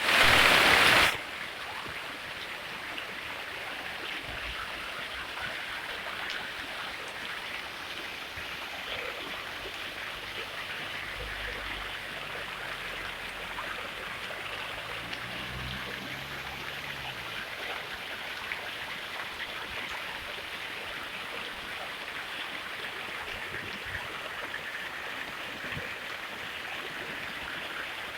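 Fountain water splashing and trickling steadily, much louder for the first second.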